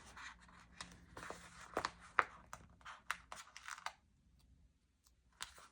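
Faint rustling and crinkling of paper stickers being peeled off their backing sheet and laid onto a planner page, with a few light ticks; it stops about four seconds in.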